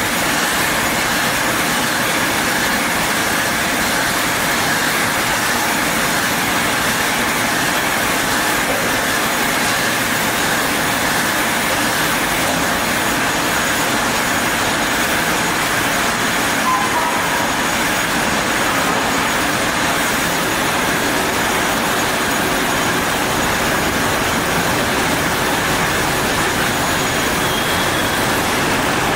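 Rotary pulp-juice bottle filling machine running steadily: an even mechanical whir and hiss from the turning filling carousel, with a faint high tone held throughout.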